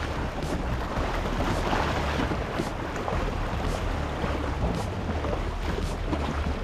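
Wind buffeting the microphone over choppy open water, with waves lapping and a steady low rumble underneath.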